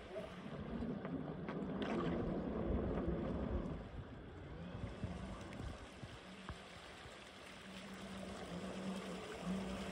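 Small unmanned survey catamaran's motors humming steadily over a noisy wash of wind and water; the hum grows stronger near the end.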